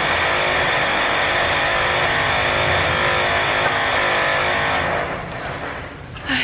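Renovation power tool running loudly and steadily, then cutting off about five seconds in.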